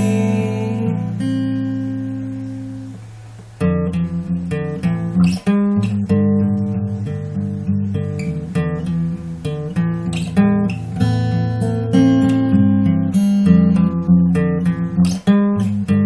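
Acoustic guitar in an instrumental break of an acoustic pop song, with no singing. A chord rings out and fades for about three and a half seconds, then strummed chords start up again and keep going.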